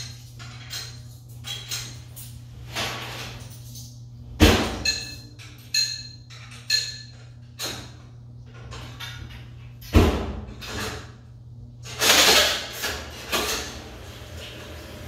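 Coin mechanisms of coin-operated Speed Queen top-load washers being worked: a run of small clicks and metallic clinks as coins go in, two heavy clunks as the coin slides are pushed home, and a short rush of noise near the end.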